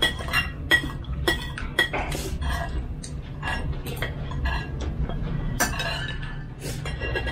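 Metal spoons clinking and scraping against ceramic plates and bowls as people eat: an irregular run of short clinks with a brief ring, over a low steady hum.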